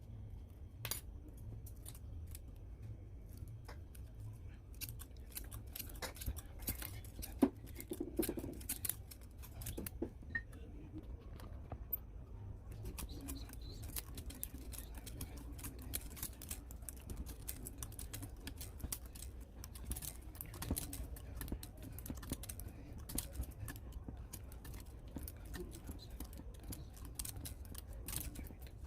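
Scattered small clicks and taps of tools and parts being handled on a workbench, over a steady low hum.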